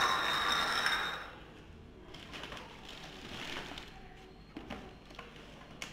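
Capped glass bottles pushed across a ceramic tile floor, a short scraping hiss during the first second. Faint handling noises follow, with a single sharp click near the end.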